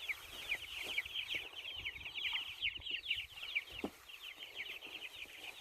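A crowd of young chicks peeping together: a dense, continuous stream of short, high, downward-slurred cheeps.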